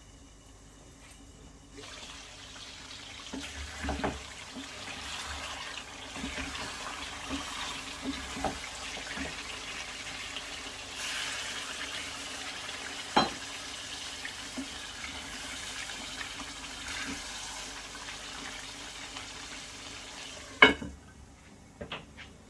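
Water running from a kitchen tap for about twenty seconds, with small knocks of utensils, then shut off with a sharp clunk near the end.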